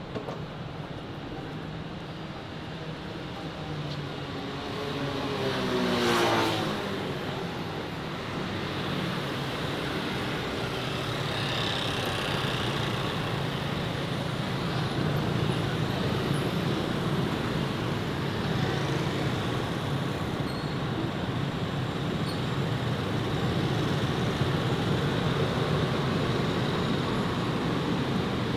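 Steady city street traffic noise. About six seconds in, a vehicle passes close by, its engine pitch falling as it goes, then the traffic continues steadily.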